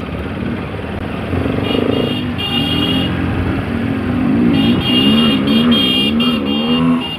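Modified Bajaj Pulsar RS200's single-cylinder engine running while riding, its note rising and falling with the throttle. A high thin tone sounds over it twice.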